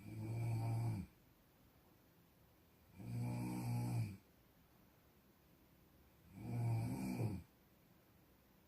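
Snoring: three drawn-out snores of about a second each, coming roughly every three seconds, with quiet breathing pauses between them.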